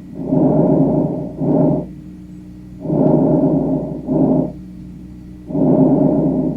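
Recorded lung breath sounds: three breathing cycles, each a longer breath sound followed after a brief gap by a shorter one, over a faint steady hum.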